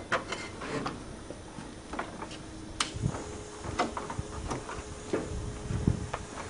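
Scattered light clicks and knocks with a couple of dull thumps as the diesel mini tractor puller is handled and readied, its engine not yet running. A faint steady hum comes in about three seconds in.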